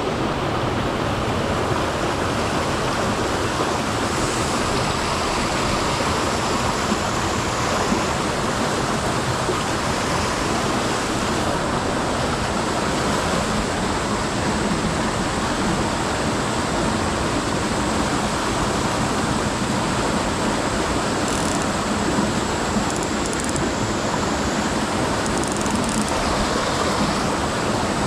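Mountain stream rushing, a loud, steady wash of water with no let-up.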